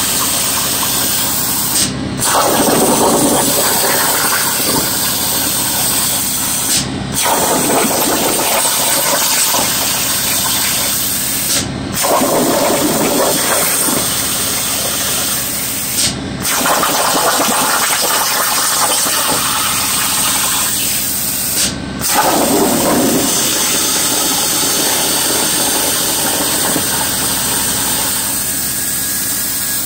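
Plasma torch of a Langmuir Crossfire CNC plasma table cutting 18-gauge sheet metal: a loud, steady hiss of the plasma arc that breaks off for a moment five times, the arc stopping and re-firing between cuts.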